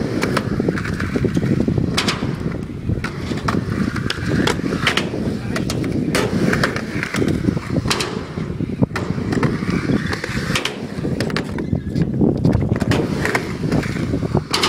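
Skateboard riding a ramp transition: a continuous rumble of the wheels rolling, with sharp clacks and knocks scattered throughout from the board and trucks striking.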